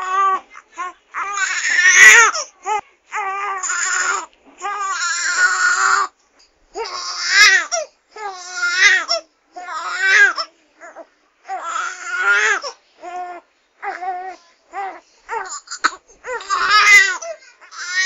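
Baby crying: a run of pitched wails, each about half a second to a second and a half long, broken by short gaps for breath. The loudest cries come about two seconds in, near seven and a half seconds, and near the end.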